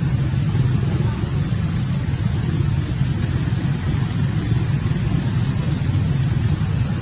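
A steady low rumbling noise with no breaks and no distinct events.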